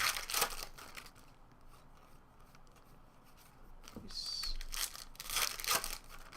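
Trading-card pack wrapper being torn open and crinkled, with cards handled, in short rustling bursts near the start and again about four to six seconds in.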